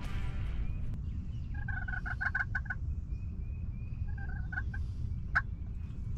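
Wild turkey toms gobbling: one long rattling gobble about a second and a half in, then a shorter one about four seconds in, with a single sharp call shortly after, over a steady low rumble.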